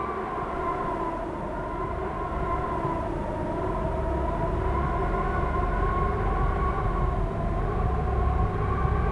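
Sustained eerie drone of several steady tones that waver slightly in pitch, over a low rumble that swells a little toward the end.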